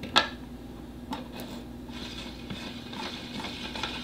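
Flowserve Durco Mark 3 pump impeller being fitted onto its shaft: a sharp knock just after the start, a few light clicks, then from about halfway a soft scraping rub as the impeller is turned onto the shaft threads.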